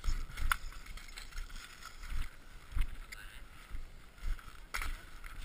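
Irregular low thumps of wind and handling on an action camera's microphone as a skier moves about in ski boots on packed snow, with two sharp clicks, one about half a second in and a stronger one near the end.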